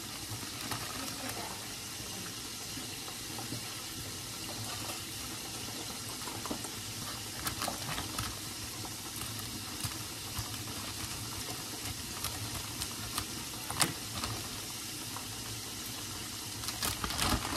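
Steady sizzle and bubbling of chicken frying in hot oil on the stove, with a few sharp snips and plastic crinkles as scissors cut open a bag of shredded cheese.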